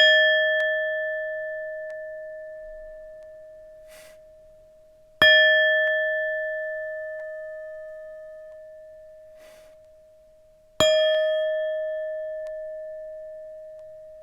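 Tibetan singing bowl struck three times, about every five and a half seconds. Each strike rings with a steady, clear tone and overtones that slowly fade.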